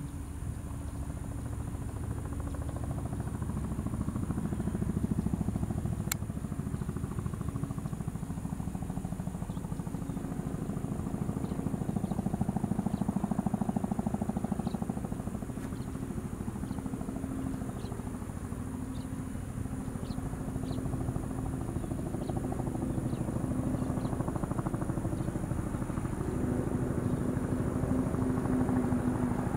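Boeing CH-47 Chinook tandem-rotor helicopter approaching in flight: rapid, even rotor-blade beats over a steady low drone, slowly growing louder as it nears.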